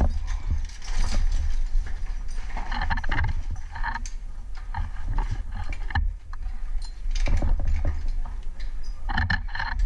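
Irregular clinks, knocks and scrapes of harness hardware, gloves and boots against rope and rock as a climber works through a narrow mine shaft. Underneath is a heavy, uneven rumble of handling noise on the helmet-mounted camera.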